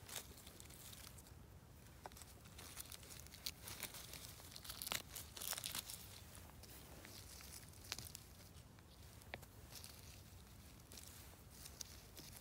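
Hands rustling through moss and dry leaves and tearing clumps of yellowfoot mushrooms from the ground: faint crackling and tearing with scattered small clicks, busiest about five to six seconds in.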